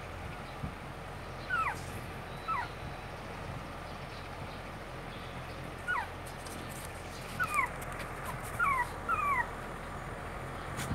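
Newborn puppies whimpering: about six short, high squeaks, each falling in pitch, scattered over a few seconds with gaps between them.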